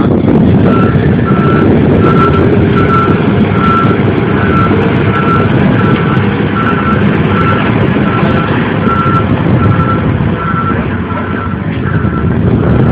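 Caterpillar 824H wheel dozer's diesel engine running, with its reversing alarm beeping steadily over it, about one and a half beeps a second. The beeping starts about a second in.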